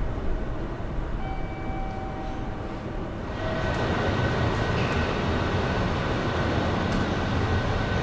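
Meitetsu electric train running on the rails: a steady rumble with faint whining tones that swells louder about three and a half seconds in and then holds.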